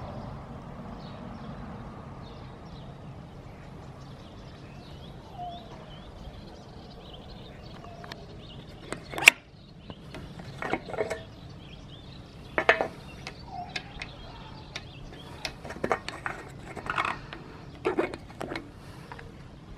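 A scattered series of sharp clicks and knocks, hand handling noise from a black rubber knob on a motorcycle's fuel tank. They start about halfway through, and the loudest comes just after that. Before them there is only a low steady hum.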